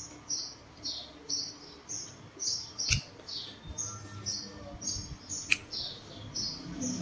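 A small bird chirping in a steady series of short, high, falling notes, about two a second. Two sharp clicks cut in, the louder about three seconds in and another about five and a half seconds in.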